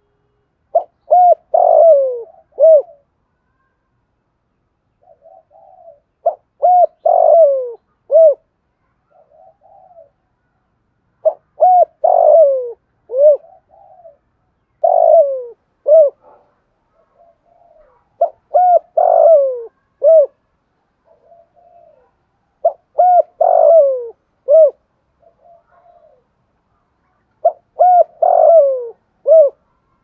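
Spotted dove cooing: a phrase of a few short clipped notes ending in a longer falling coo, repeated about every four to five seconds, seven times, with softer low coos between the phrases.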